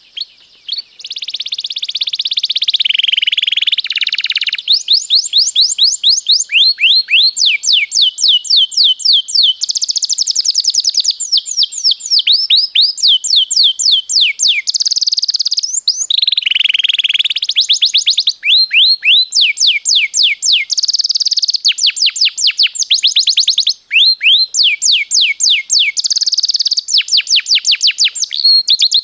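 Domestic canary singing a long, continuous song of fast rolling trills, each made of rapid repeated downward-sweeping notes, starting about a second in and broken only by a short pause near the end.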